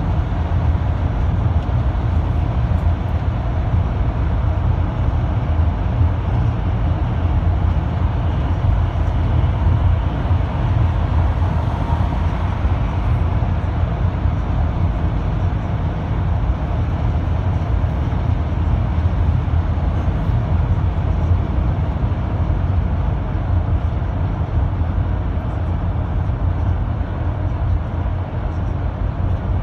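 Minibus cruising at highway speed, heard from inside the cabin: a steady low rumble.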